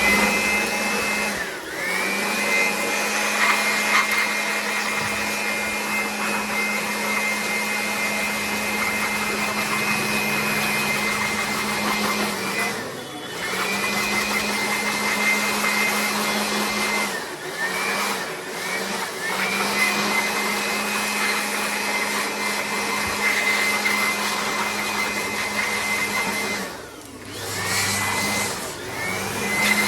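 Handheld electric air blower running in long spells, spinning up with a rising whine each time it is switched on and cutting off briefly several times.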